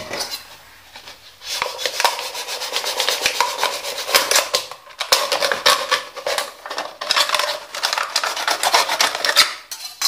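A knife blade sawing through a thin plastic drink bottle to cut off its top: quick back-and-forth scraping strokes, several a second, starting about a second and a half in, with a couple of brief pauses.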